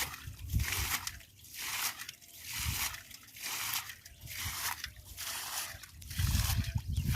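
Water sloshing and splashing in repeated strokes, about one a second, with a low rumble coming in near the end.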